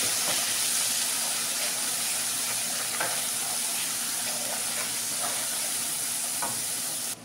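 Masala of ground ginger-garlic-chilli paste, spices and tomato sizzling in hot oil in a non-stick kadhai as it is fried down, stirred with a wooden spatula that scrapes the pan a few times. The sizzling cuts off suddenly just before the end.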